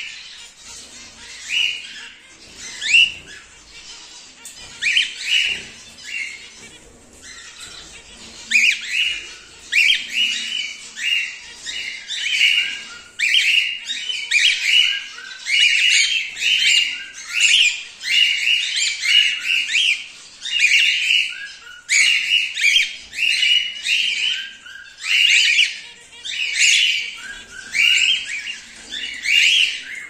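Several emerald cockatiels chirping and calling in short, repeated calls. The calls are sparse for the first several seconds, then come in a near-continuous run from about eight seconds in.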